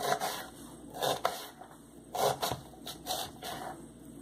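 Kitchen knife slicing through a halved onion on a wooden cutting board: a string of short, crisp cuts, roughly two a second, each tapping the board.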